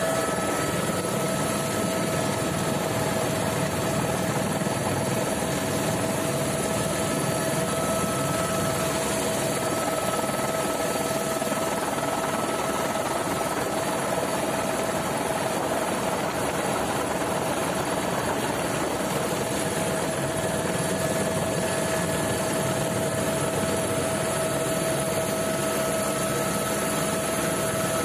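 Helicopter engine and rotor noise in flight, heard from inside the cabin: a steady dense rush with a constant whine on top.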